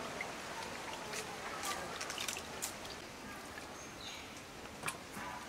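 Scattered small clicks and scrapes of potatoes being cut on a bonti blade and the pieces dropped into a bowl, with one sharper click near the end.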